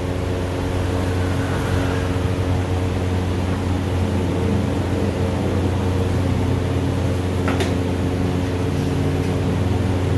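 A steady low machine hum with a one-pitched drone, and a single sharp click about seven and a half seconds in.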